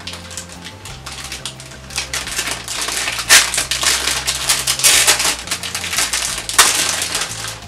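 Clear plastic bag crinkling as it is handled and pulled open by hand, with louder crackles about three, five and six and a half seconds in.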